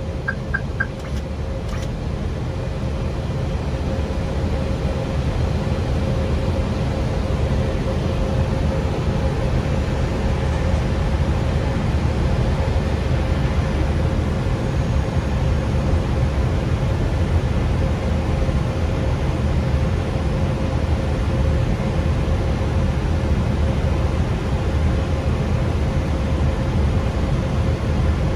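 Steady in-cockpit noise of an Airbus A320 on final approach: a rushing roar of air and engines, heaviest in the low range, with a steady hum underneath. Three short high beeps sound just after the start.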